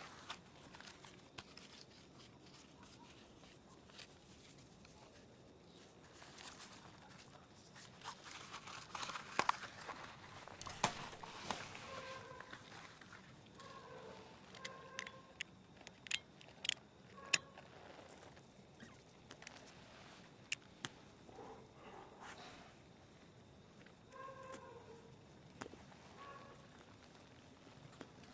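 Quiet night ambience with a faint animal call in short pitched notes, heard now and then. Midway comes a cluster of sharp clicks and rustles as a cigarette is lit.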